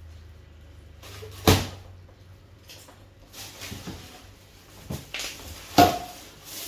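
A few knocks and bumps from objects being handled and set down, two sharper ones about a second and a half in and near the end, over a low steady hum.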